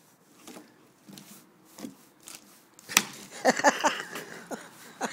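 A dog scrabbling and snuffling at something on paving stones: scattered small scrapes and knocks, then, about three seconds in, a louder flurry of scuffling with short wavering vocal sounds.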